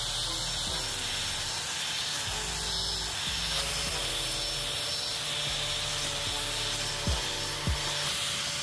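Handheld angle grinder rigged as a weed trimmer, running steadily as it scrapes and cuts through grass and weeds at soil level. Background music with a beat plays alongside.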